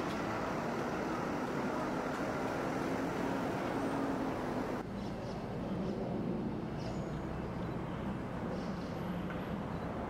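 Steady hum of distant road traffic, with an abrupt change in the background about five seconds in as the higher hiss drops away.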